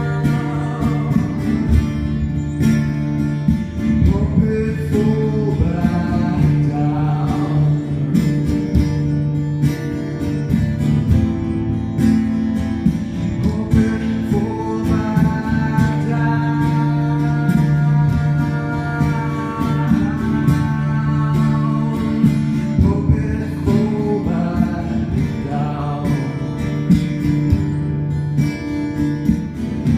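Live solo acoustic song: an acoustic guitar strummed steadily while a man sings long held notes over it.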